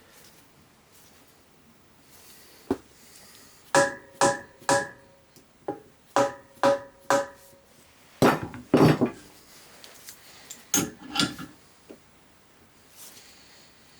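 A series of sharp metal-on-metal strikes, each ringing with a clear pitched tone. There is a quick run of about seven blows, then a duller clatter, then two more strikes, typical of knocking parts free while dismantling an old cast turbine governor.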